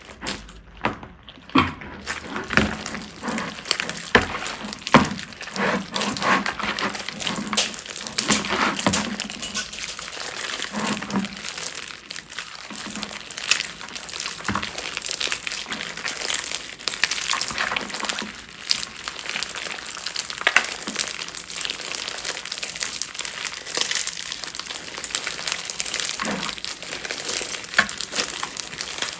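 Slime being squeezed and worked by hand, a dense, continuous run of crackling and crinkling.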